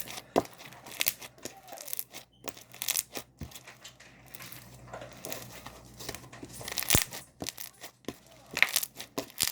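Slime being kneaded and stretched by hand while scent is worked in, giving irregular sticky crackles and pops.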